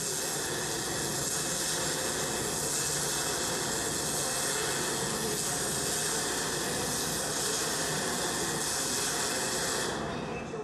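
Pulsed MIG welding arc on aluminum giving a steady, even hiss, fading out near the end.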